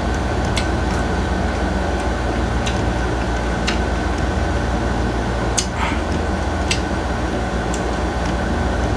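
Steady mechanical room hum with a low rumble and a thin high tone, like an air conditioner or fan running, with a handful of faint short clicks scattered through it as a man chews a mouthful of mango.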